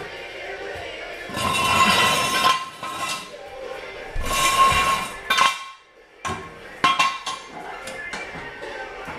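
Metal clanking and clinking from a steel floor jack and its long handle being worked under a car: several loud clattering clanks with a metallic ring, the loudest about two seconds in and again four to five seconds in, with a sharper clank about seven seconds in.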